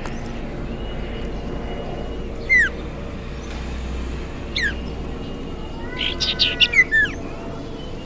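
Caged common iora (cipoh) calling: a sharp, down-slurred whistle about two and a half seconds in, a fainter one near the middle, then a quick run of chirps and falling whistles about six to seven seconds in.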